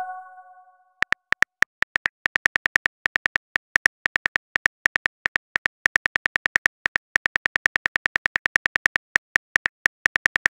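Phone keyboard typing clicks, short sharp ticks at about six a second with brief pauses. The ringing tail of a message chime fades out just before the typing starts.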